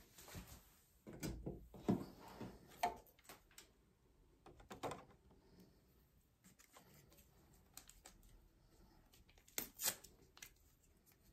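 Small handling noises: scattered clicks, taps and light rustling as small items and packaging are handled on a bathroom counter, with a sharper pair of knocks near the end.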